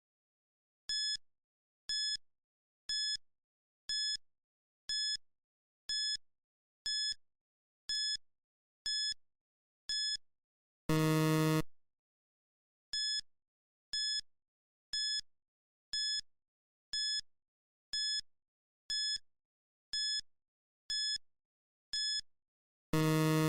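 Quiz countdown timer: short, high electronic beeps about once a second, ten in a row, each ending in a longer, lower buzzer tone. The sequence runs twice, with the second buzzer starting near the end.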